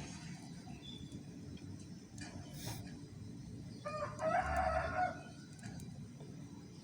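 A rooster crowing once, about four seconds in, for about a second, over a steady low hum.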